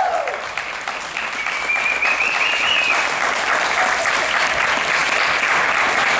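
Audience applauding, the clapping growing louder after the first second.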